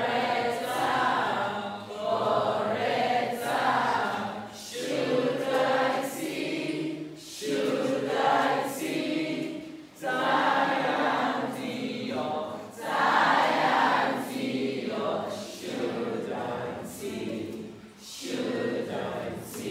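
A large group of schoolchildren singing together unaccompanied, in short phrases with brief pauses between them.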